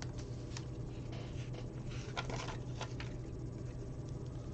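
Faint clicks and light handling of small plastic Lego pieces, a few scattered sharp ticks over a low steady hum.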